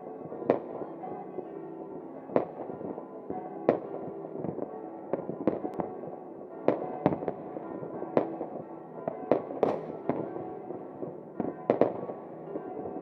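New Year fireworks bursting: a dozen or more sharp bangs at uneven intervals, some in quick pairs, over steady background music.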